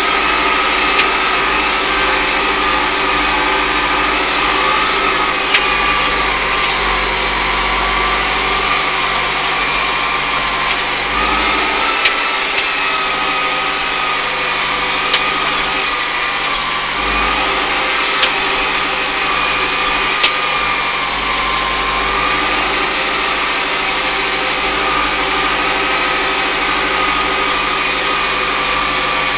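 Deutz-Fahr M410 tractor's engine running steadily as the tractor drives along, heard from the driver's seat, with a steady high whine over it. A few sharp knocks come at scattered moments through it.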